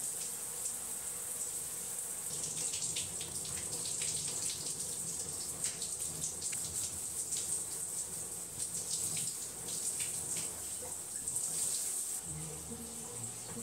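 Water running from a bathroom tap in a steady hiss, with irregular splashing as someone washes under it. Background music comes in near the end.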